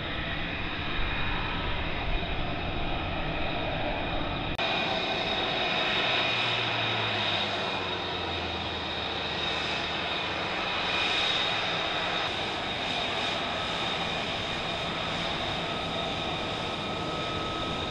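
F-35B's single F135 turbofan engine running at taxi power: a steady jet whine with several high steady tones over a broad rush. The sound shifts abruptly about four and a half seconds in, gaining more high hiss.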